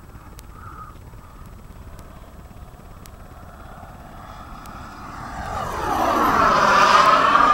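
Radio-controlled Cougar scale model jet passing close by in flight. Its whine is faint at first, swells loudly about five seconds in, and its pitch dips and then climbs again as it goes past.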